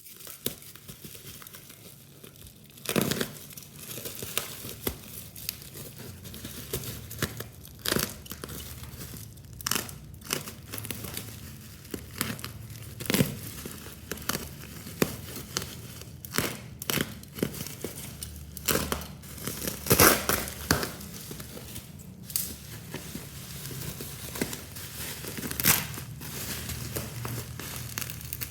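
Laptop packaging being handled and unwrapped, giving irregular sharp rustles and snaps, the loudest about twenty seconds in.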